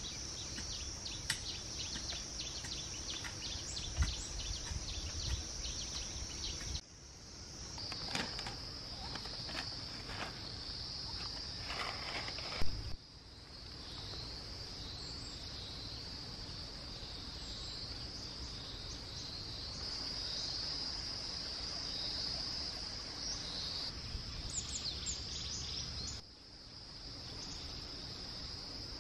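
Steady high-pitched chorus of insects, with a few bird chirps. Over it, in the first several seconds, a garden hoe strikes the soil repeatedly with short soft knocks, and there is a single sharp knock a little before halfway.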